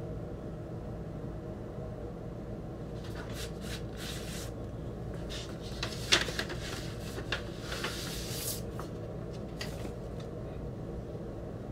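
Paper and cardboard record sleeves rustling and scraping as a vinyl LP is handled and drawn out, with one sharp knock about six seconds in, over a steady low hum.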